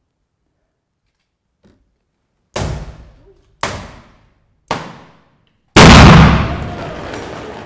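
Three balloons igniting one after another, each a sharp bang about a second apart, then a far louder blast as a hydrogen-and-oxygen balloon explodes inside an oil drum that amplifies it, ringing on for a couple of seconds in the hall.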